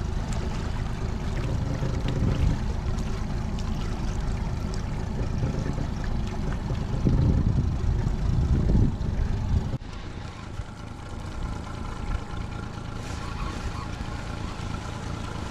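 Honda 30 hp four-stroke outboard motor running steadily at trolling speed, with gusty noise on the microphone. The level drops suddenly about ten seconds in, leaving a quieter, steadier hum.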